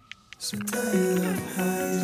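Background music starting about half a second in, several instruments holding long steady notes.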